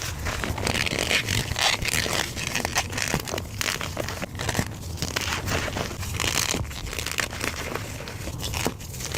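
Blocks of gym chalk being crushed and crumbled by hand: a dense, continuous crunching and crackling made of many small snaps.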